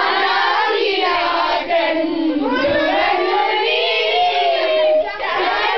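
A group of young people singing a song together, many voices at once. One voice holds a long note that cuts off about five seconds in.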